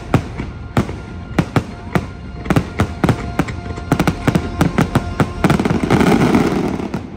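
Fireworks finale: a rapid string of sharp firework bangs over the show's music, whose held chord ends about five and a half seconds in. A dense, loud wash of noise follows and fades away near the end.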